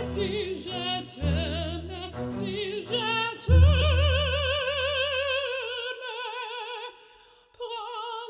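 Operatic singing with a wide vibrato over orchestral accompaniment. Deep held chords under the voice stop about six seconds in, and the music dips briefly near the end.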